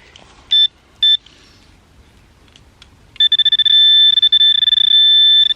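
Metal detector's high-pitched signal tone: two short beeps, then a steady, slightly warbling tone held from about three seconds in, sounding off a metal target at the edge of the dig hole.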